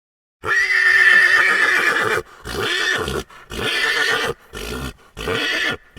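Horse whinnying: one long, high call, then a string of shorter, quieter pulses that taper off.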